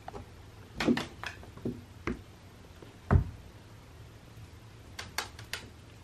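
A cat batting at a fishing-pole wand toy on carpeted stairs makes a scatter of soft thumps and light knocks. The loudest is a low thump about three seconds in, and a quick run of sharp clicks follows near the end.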